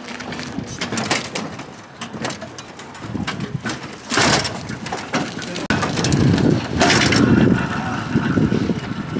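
A heavy vending machine being pulled along on a dolly: wheels rumbling unevenly over the ground, with knocks and clatter. The rumble grows louder about halfway through.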